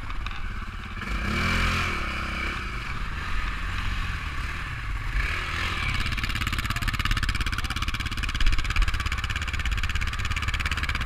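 Quad bike engine running and revving up and down through mud, with clattering and scraping. A sharp knock about eight and a half seconds in.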